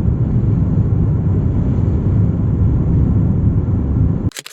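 Steady low road and engine rumble inside a moving camper van's cabin. It cuts off abruptly near the end, followed by a brief crackle.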